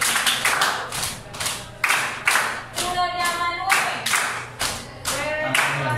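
A group of people clapping their hands in a steady rhythm, with voices singing along.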